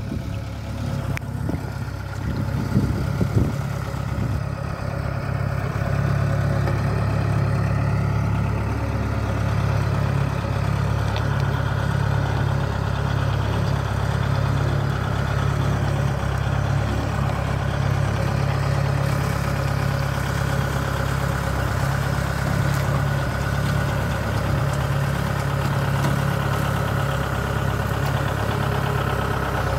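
Kubota DC-68G crawler combine harvester's diesel engine running steadily as the machine moves down into the canal, with a few knocks about two to four seconds in. The engine gets louder about six seconds in and then holds level.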